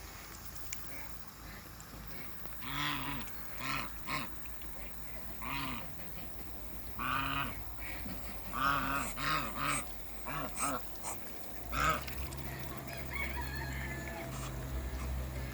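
African geese honking: a run of about a dozen short, arched honks in irregular bursts, after a quiet first few seconds. Near the end the honking stops and a steady low hum sets in.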